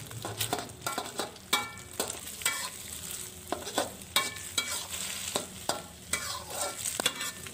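Metal spatula scraping and clanking against a metal wok while scrambling eggs, in quick irregular strokes, some ringing briefly, over a light sizzle of the eggs frying in oil.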